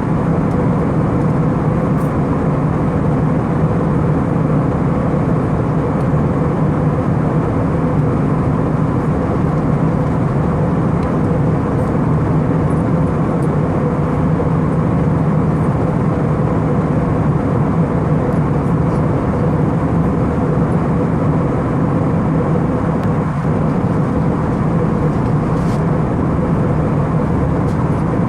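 Steady drone inside the cabin of an Airbus A319 airliner in flight: engine hum and rushing airflow, with a low steady hum and fainter higher tones over the noise.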